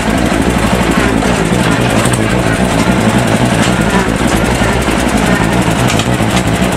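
Ariens garden tractor's engine running steadily through its short upright exhaust pipe, an even low-pitched drone.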